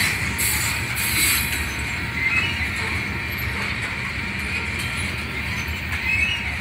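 Grain train's covered hopper cars rolling past, a steady rumble of wheels on rail with a few short high squeals from the wheels.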